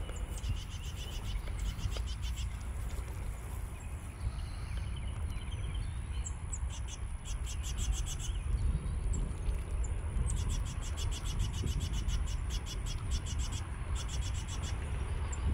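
Birds trilling: rapid high trills in bursts of a second or two, repeated several times, over a low steady rumble.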